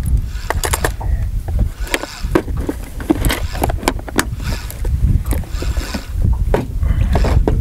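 Small waves lapping and slapping against the hull of a small metal boat, with irregular sharp slaps and knocks over a steady low wind rumble on the microphone.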